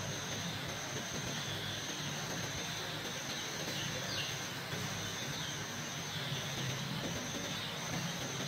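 A crowd of young chicks peeping together in a steady chorus, over a low hum.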